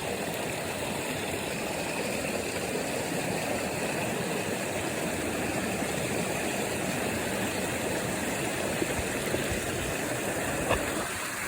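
Steady rush of a river flowing over rocks and small cascades, with a brief tap near the end.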